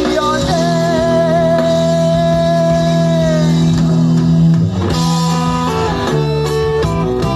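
Instrumental outro of a rock worship song: a guitar holds one long note with vibrato that fades out about three and a half seconds in, then shorter notes follow over held bass notes.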